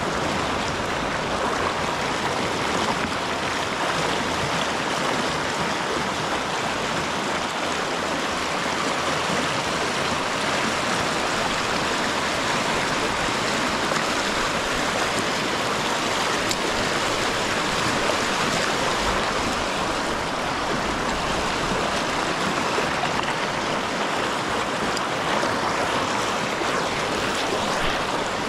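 River water rushing steadily, an even, unbroken rush of current.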